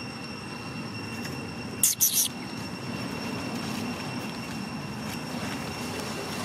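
Outdoor ambience with a steady high-pitched drone, and a brief shrill squeak in two or three quick parts about two seconds in, the loudest thing heard.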